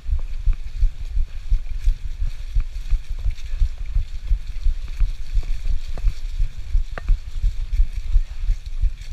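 Wind buffeting the microphone of a handlebar-mounted action camera on a moving mountain bike, heard as a loud, uneven low rumble. Scattered small clicks and rattles come from the bike going over the leaf-covered trail.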